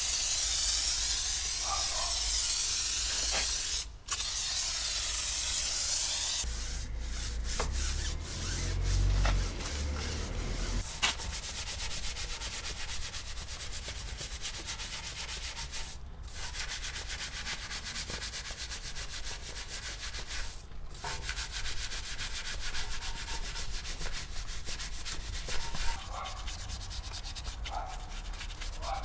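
A steady spray hiss for about the first six seconds, then continuous rapid scrubbing and rubbing on a car's bodywork during a wash.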